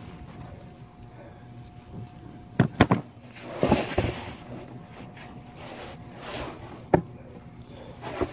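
Handling noises from hands working under a zero-turn mower's frame: three quick sharp knocks a little over two and a half seconds in, a short rustle just after, and one more knock about seven seconds in, over a low steady hum.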